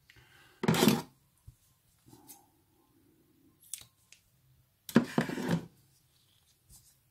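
Side cutters snipping pieces off green heat-shrink tubing at a workbench, with two louder cuts about a second in and about five seconds in, and light taps and clicks of handling between.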